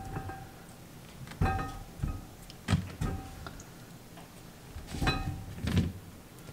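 Brined pickling cucumbers dropped one by one into a large glass jar, each landing with a thunk and a short glassy ring. There are about seven knocks, with the loudest pair near the end.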